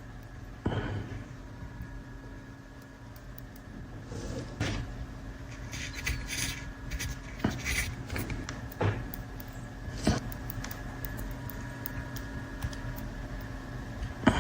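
Scattered clicks and knocks of small hard objects being handled, about a dozen at uneven intervals, over a steady electrical hum.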